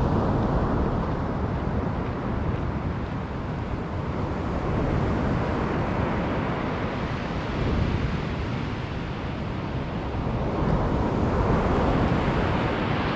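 Wind buffeting the microphone over the steady rush of surf breaking on the beach, with no distinct events, swelling a little about two thirds of the way in.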